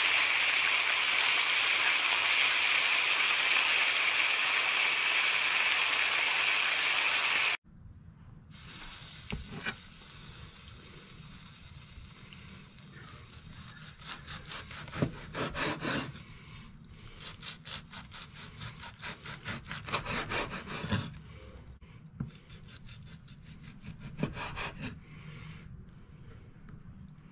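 Chuck steak searing in a frying pan, a loud steady sizzle that stops abruptly about seven seconds in. Then a cleaver slices the seared steak into cubes on a wooden cutting board: quieter repeated cutting strokes with a few sharper knocks of the blade on the board.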